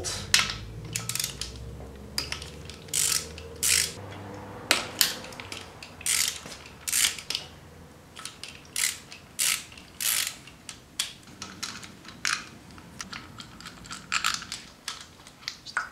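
Hand socket ratchet clicking in short, irregular bursts while backing out the 14 mm bolts that hold the timing-belt idler rollers.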